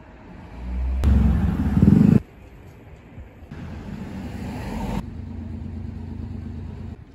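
Street ambience made of several short clips joined together. About a second in, a motor vehicle's low rumble swells loud, then cuts off abruptly about two seconds in, leaving quieter traffic hum.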